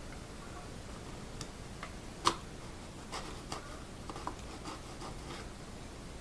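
Hand chisel paring wood off a mandolin's neck heel: a series of short scraping cuts and clicks, the sharpest about two seconds in.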